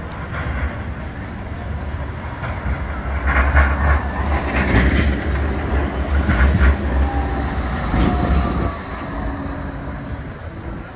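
A Bombardier Flexity 2 tram passes close by on street track: a low rumble of wheels on rail that builds to a peak midway, with a few sharp clacks, then falls away near the end. A faint whine slides down in pitch as it goes past.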